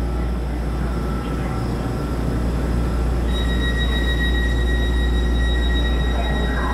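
EMU3000 electric train standing at the platform with a steady low hum from its running equipment. About halfway through, a steady high tone starts and holds.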